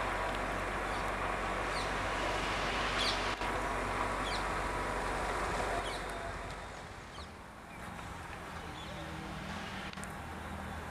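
Steady engine rumble with hiss, with a few short bird chirps over it. About six seconds in it fades to a quieter low hum.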